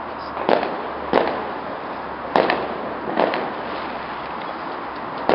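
Fireworks going off: five sharp bangs at irregular intervals, each trailing off in an echo.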